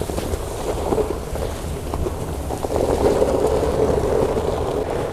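A towing vehicle's engine rumbling under load while a Porsche 944 with locked, flat wheels is dragged over the ground, giving a steady scraping, crunching noise with a few small clicks.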